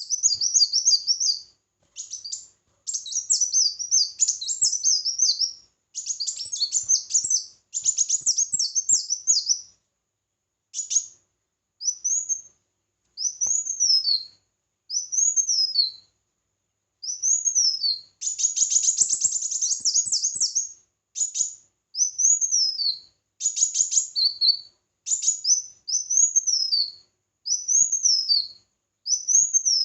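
A small songbird singing in high-pitched phrases with short pauses between them. First come rapid twittering trills, then a string of quick sharply falling notes, about one a second.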